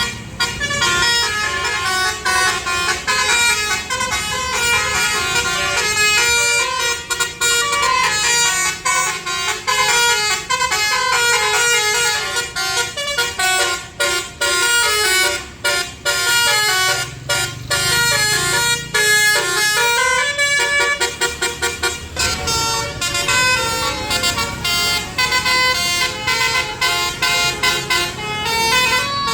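A bus's Basuri telolet horn, a multi-note musical horn, playing a melody as a quick run of short notes that keeps stepping in pitch. A low engine rumble comes through beneath at times.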